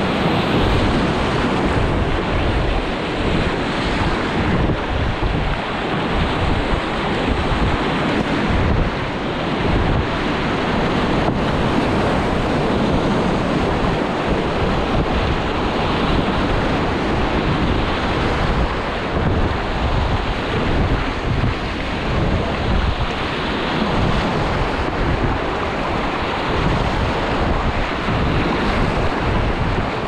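Fast river water rushing and splashing around a wildwater kayak, with wind noise on the camera's microphone.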